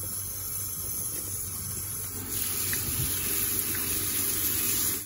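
Kitchen tap running, the stream splashing over corn cobs in a plastic colander in a stainless steel sink as they are rinsed by hand. The steady rush grows louder about two seconds in.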